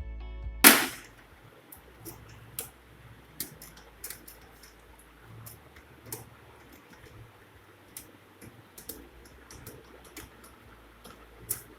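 Light plastic clicks and taps from handling a laser printer's toner cartridge, with a sharp knock just under a second in and a louder click near the end.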